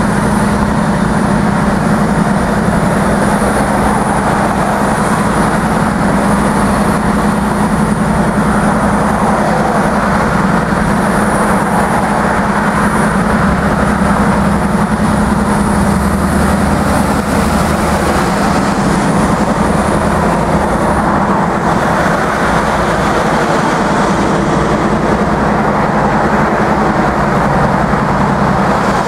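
Norfolk Southern diesel-electric locomotives passing close by: a steady, loud engine drone over the rumble of steel wheels on the rails. A high whine drops out about two-thirds of the way through.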